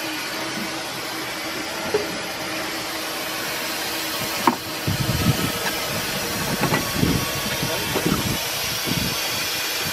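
Steam launch's boiler and engine hissing steadily while under way, with a sharp click about halfway through and irregular low thumps after it.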